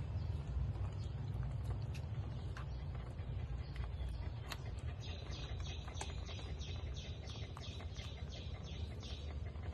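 Puppies suckling at their mother's teats, with small scattered clicks over a steady low rumble. From about halfway in, a bird chirps in a regular series, about two and a half chirps a second.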